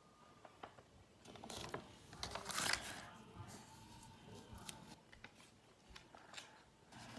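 Paper and tape being handled: scattered clicks and a loud rasping rip about two seconds in.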